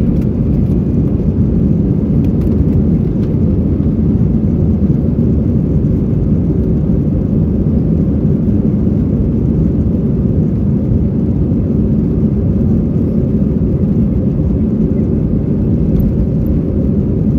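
Airbus A320 cabin noise during taxi: a steady low rumble of the jet engines at low power, heard from inside the cabin over the wing, with no rise in thrust.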